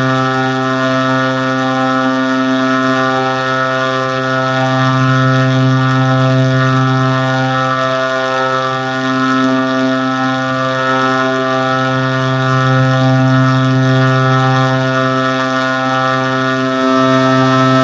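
A steady, buzzy low-pitched drone held on one note, with slight swells in loudness.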